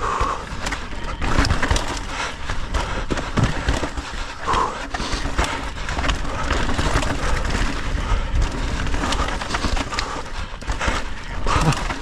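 Santa Cruz Megatower V2 mountain bike descending a rough rock section: tyres rumbling and crunching over rock, with frequent knocks and rattles from the bike as it takes the hits.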